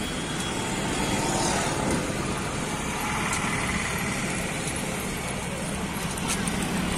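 Busy highway traffic going by, mostly motorcycles, as a steady hum of engines and tyres.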